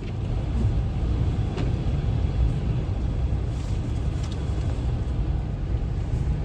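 Steady low rumble of strong wind buffeting the microphone during a snowstorm.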